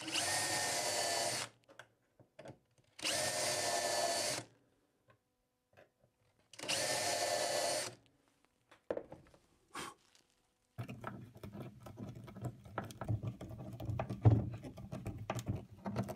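Cordless drill boring three short pilot holes through a brass hinge into a wooden cabinet door, each run about a second long with pauses between. After a few clicks, a screw is turned in by hand with a screwdriver, giving a steady run of small clicks and scraping.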